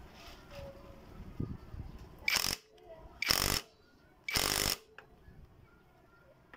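Impact wrench running the magneto flywheel nut of a Yamaha Mio scooter tight in three short bursts, about a second apart.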